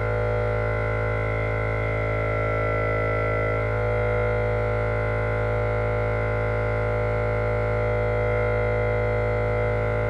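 Air Lift air-suspension compressor running steadily in the car's trunk, a constant motor drone with a strong low hum, hard-mounted on its stock feet without isolators and heard from across the garage.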